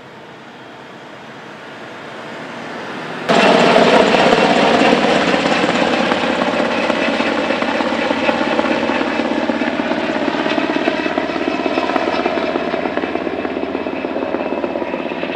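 Helicopter engine and rotor noise, a steady whine over dense noise. It swells slowly at first, cuts in loud about three seconds in, then eases off gradually.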